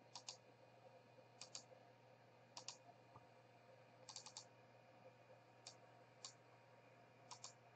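Faint computer mouse and keyboard clicks, coming in small groups of two to four every second or so.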